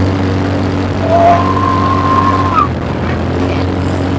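Small vehicle engine running steadily with a low hum. About a second in, a thin steady tone sounds for a second and a half and ends with a short upward slide.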